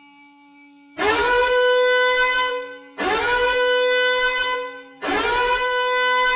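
Loud horn sound effect blaring three times, each blast about a second and a half long and scooping up in pitch before holding one note. A faint steady low hum lies underneath.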